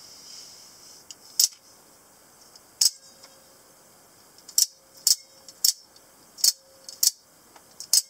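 Scarab out-the-front automatic knife's spring-driven blade snapping out and back through the handle as the thumb slider is worked: eight sharp metallic clicks, coming closer together in the second half.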